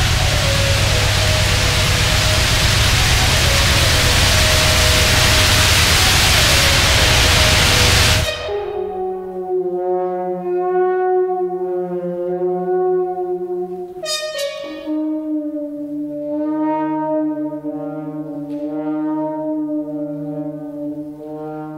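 A loud wash of electronic noise with faint held tones under it cuts off abruptly about eight seconds in, leaving French horn playing long sustained notes over a second, lower held tone, the notes changing every few seconds.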